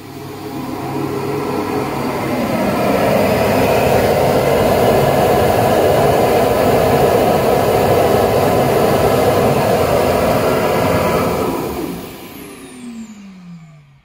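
Roidmi EVE Plus self-emptying dust station's suction motor spinning up with a rising whine, running loud and steady for about ten seconds as it sucks the dust and hair out of the robot's bin, then winding down with a falling whine near the end.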